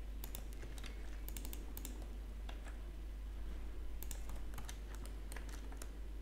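Computer keyboard keys and mouse buttons clicking at an uneven pace, in two bursts of clicks with a pause of about a second and a half between them, over a steady low hum.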